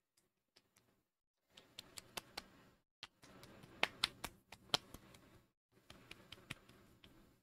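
Hands patting and rubbing skincare into the face and neck close to the microphone: sharp pats and clicks over a soft rubbing hiss, in three spells.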